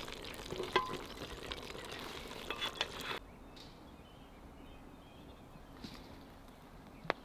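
Wooden spoon scooping stewed beef out of a cauldron (kazan) onto an enamel plate, with clicks and knocks about a second in and again near three seconds, over a steady hiss. About three seconds in it cuts abruptly to faint outdoor background, with one sharp click near the end.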